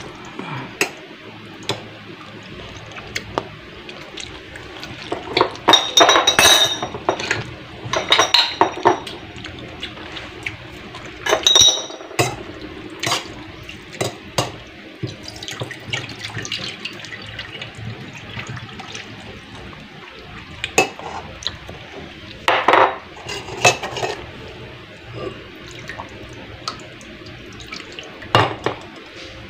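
A metal spoon scraping and clinking against a stainless-steel mesh colander while stirring syrupy nata de coco cubes to drain them, with liquid dripping through. The clinks and scrapes come in irregular bursts.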